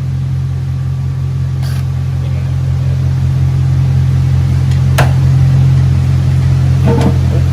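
A steady low machine hum, with a single sharp click about five seconds in.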